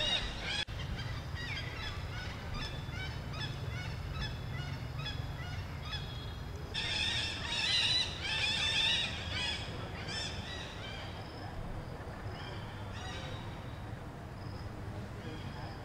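Monkeys squealing and screeching in many short, high calls, with a denser, louder burst of calls about seven seconds in, over a steady low background hum.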